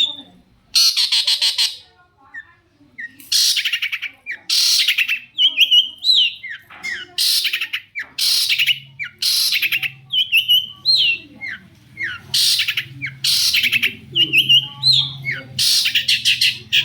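Long-tailed shrike (cendet) singing: harsh, rasping chattering bursts, each under a second, alternating with short twittering whistled notes. A faint low hum comes in about halfway through.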